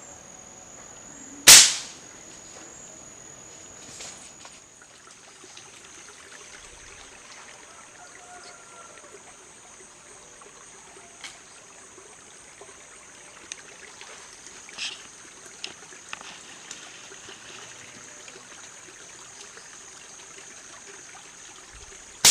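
A Diana 350 Magnum break-barrel spring-piston air rifle fires one sharp shot about a second and a half in and another right at the end. Between the two shots, crickets or insects shrill steadily, with a few faint small clicks.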